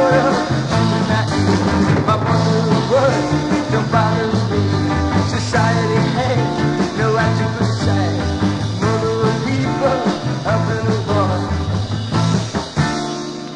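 Sixties garage psychedelic rock recording: a full band with bass and guitar playing, the level dropping near the end.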